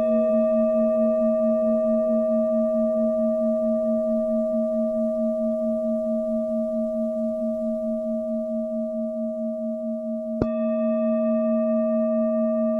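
Tibetan singing bowl ringing after a strike, a long sustained tone with several overtones and a regular wavering pulse. It is struck again about ten seconds in.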